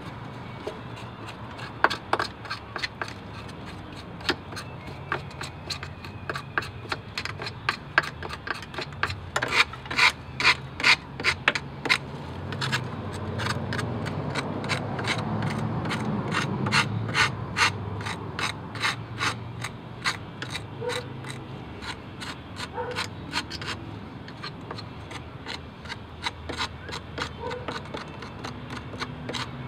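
Flathead screwdriver tip scraping caked dirt and grime off a steering rack's metal housing: a long run of short, sharp scrapes, a few a second and unevenly spaced.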